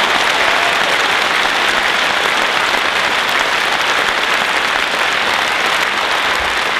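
A large audience clapping steadily, a dense sustained applause.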